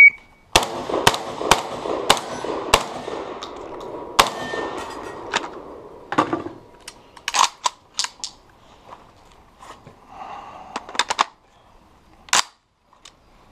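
A shot timer's start beep, then a competition string of gunshots: about five quick shots in the first three seconds, then more shots in short groups with pauses between, the last one near the end.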